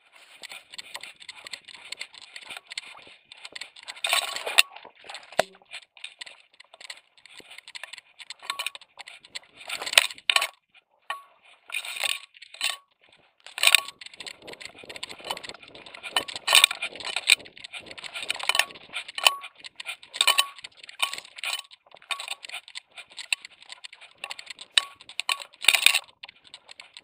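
Irregular metallic clinking and rattling from a dog's camera vest and its fittings as the dog runs, coming in quick clusters and jolts without a steady rhythm.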